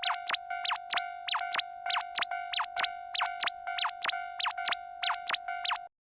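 Synthesized railroad crossing alarm of an odd, cartoonish kind: a steady electronic tone under quick chirping pitch sweeps, about three a second. It cuts off suddenly near the end.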